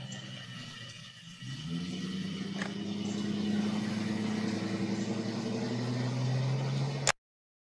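A motor vehicle engine running, its hum rising in pitch about a second and a half in and then holding steady. The recording cuts off abruptly with a click near the end.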